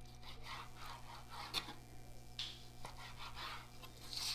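Chef's knife slicing through raw chicken breast on a plastic cutting board: faint scraping strokes, with a few light knocks of the blade on the board.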